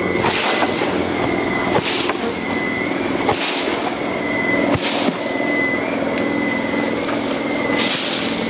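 Honeybee swarm buzzing, a dense steady hum of many bees in the air after the swarm is shaken into the hive box. A few brief rushes of noise come and go over it.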